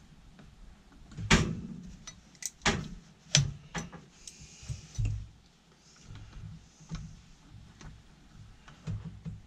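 Irregular sharp knocks and clunks of tools and metal fittings being handled during work on copper LPG gas pipe fittings. About half a dozen come in the first five seconds, with a brief scrape in between, then lighter taps.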